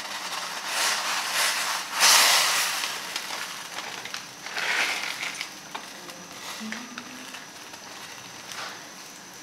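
A dry instant-ramen noodle cake goes into a pot of boiling water, with a loud splash and hiss about two seconds in and smaller bursts around it. After that the water bubbles steadily.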